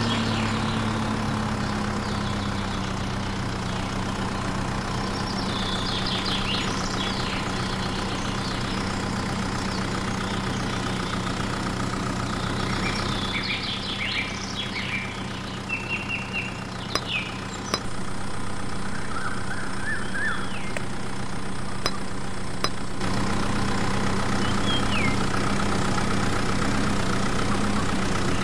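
An engine running steadily at idle, with birds chirping now and then over it.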